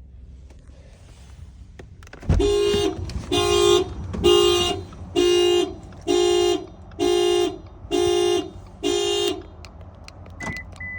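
A 2020 Subaru Forester's anti-theft alarm sounding the car horn in eight even honks, about one a second, which then stop. Near the end there is a click followed by short high beeps.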